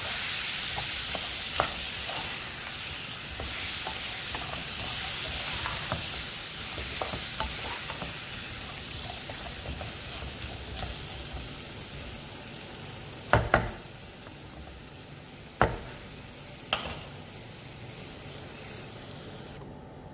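Wooden spatula stirring chunks of kachri (small melon) through a mustard-oil tadka in a kadhai, scraping and clacking against the pan, with a frying sizzle that fades as the pan cools with the gas turned off. A few sharp knocks of the spatula on the pan come about two-thirds of the way in.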